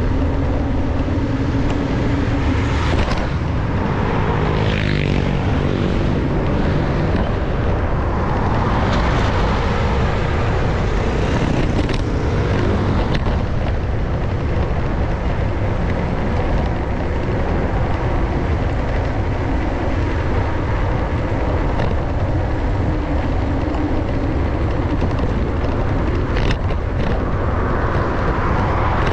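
Steady wind rumble on the microphone of a moving rider, with road traffic passing close by. A few seconds in, a passing vehicle's engine note falls in pitch as it goes by.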